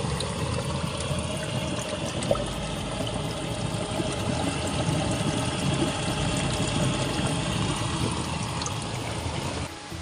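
Spring water trickling and splashing over rock at a steady level. It cuts off abruptly just before the end.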